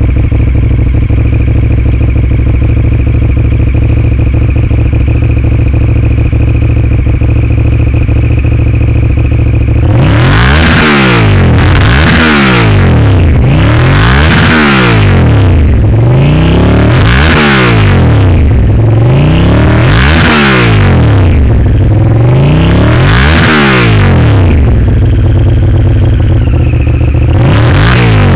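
Honda VTR1000 SuperHawk's 996 cc V-twin through Yoshimura pipes, idling steadily for about ten seconds. It is then revved hard in a string of quick throttle blips, each rising and dropping back, settles to idle briefly, and is blipped once more near the end.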